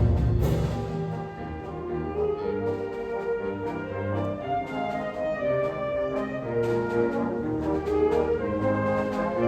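Symphonic wind band playing a slow passage of held, overlapping chords, carried mainly by the brass (horns and trombones).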